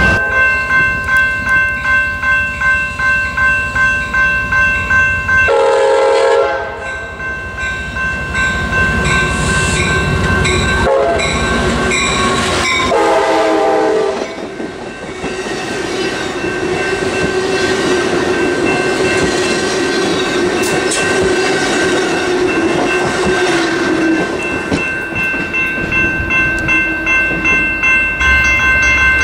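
Crossing warning bell ringing about twice a second while an Amtrak California passenger train approaches and sounds its horn in three blasts. Its bilevel cars then roll past with wheels clicking over the rail joints, and the bell rings on after the train has gone by.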